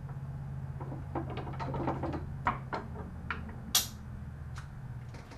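Scattered light clicks and taps of small metal parts and a hand tool handled against a patio umbrella pole's crank assembly, the sharpest click just before four seconds in, over a steady low hum.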